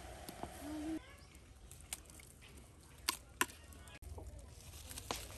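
Rural outdoor background with birds or fowl calling faintly and a few sharp clicks, the loudest two close together about three seconds in.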